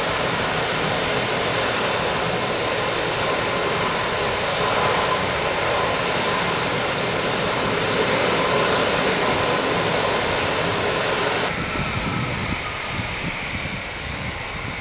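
Gulfstream C-37B's twin Rolls-Royce BR710 turbofans at taxi power: a steady jet hiss with a faint whine. Near the end the hiss drops off suddenly, leaving a lower rumble.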